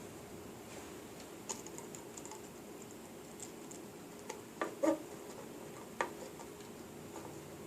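A few faint, scattered clicks and taps from small parts being handled while wires are soldered, over a low steady hum.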